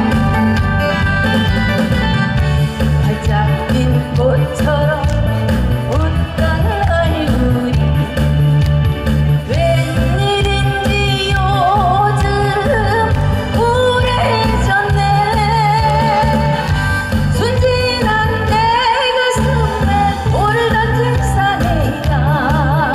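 A woman singing a trot song into a microphone, her voice wavering with vibrato on held notes, over loud amplified backing music with a steady beat and bass line.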